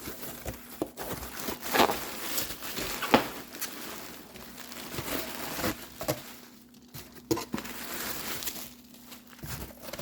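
Cardboard shipping box being opened by hand: packing material crinkled and rustled, with tearing and sharp snaps at irregular moments. A faint steady hum sits underneath.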